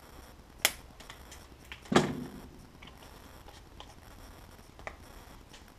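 Hands handling a small plastic bottle of anaerobic gasket maker over a workbench: a sharp click just under a second in, a louder knock about two seconds in, then a few faint ticks.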